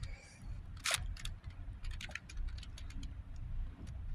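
GAN 460 M magnetic 4x4 speedcube being turned by hand: irregular clicks of its layers turning, one louder click about a second in.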